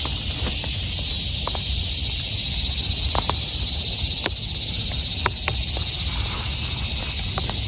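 Steady rain, with scattered single drops striking sharply every second or so over a low, constant rumble.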